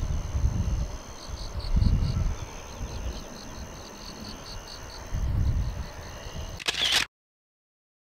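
Wind buffeting the microphone in low rumbling gusts, under a faint steady high whine and a light, evenly spaced ticking. A sharp click comes about seven seconds in, and then the sound cuts off suddenly.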